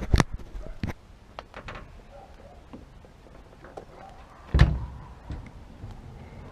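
Sharp knocks at the start, a few light clicks, then one heavy thud about four and a half seconds in.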